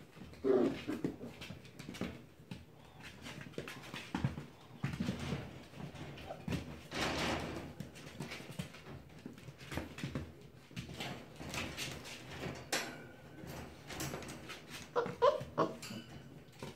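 Puppies scuffling and moving about, with a few short whines about half a second in and again near the end, among scattered noisy rustles and small clicks and knocks.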